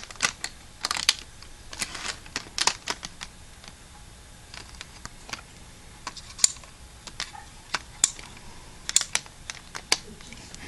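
Irregular light clicks and taps of a Bachmann 'Edward' model locomotive and its tender being fitted onto the rails by hand, the wheels and plastic body knocking against the track.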